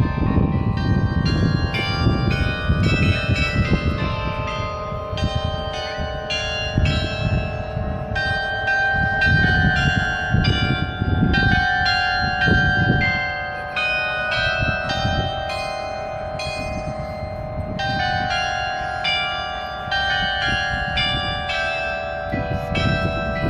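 A 95-bell carillon playing a tune: many bells struck one after another at different pitches, each note ringing on and overlapping the next.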